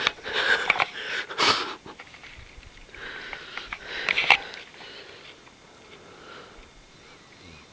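A sleeping man snoring: two loud, noisy snore breaths about three seconds apart, then fainter breathing.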